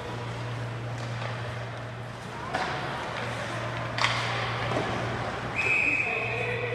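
Ice hockey play in an arena: two sharp clacks of puck against sticks or boards, the second the louder, over a steady low arena hum with players' voices. Near the end a short high steady tone sounds.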